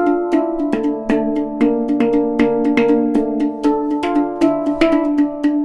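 Background music: sustained chords with a quick, steady percussive beat.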